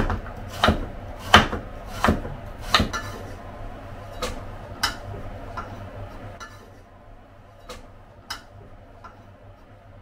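Kitchen knife cutting a carrot on a wooden cutting board: sharp knocks of the blade hitting the board about every two-thirds of a second, becoming sparser and fainter in the second half as it slices through an onion.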